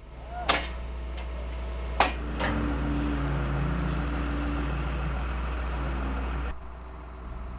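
Sharp metal clanks of steel on rail during track laying, the first ringing on for over a second, then a front-end loader's engine running steadily.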